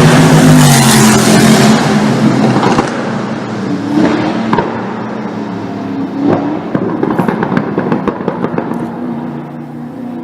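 A performance car's engine runs loud at high revs, then as the revs fall its exhaust crackles and pops many times on the overrun.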